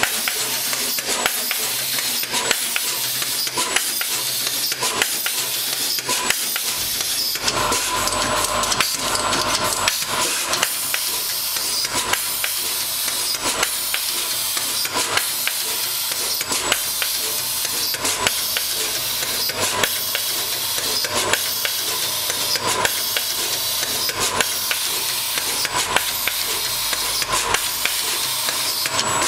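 SMT machine running: a steady hiss of air with rapid, irregular mechanical clicks, and a faint steady tone from about seven seconds in.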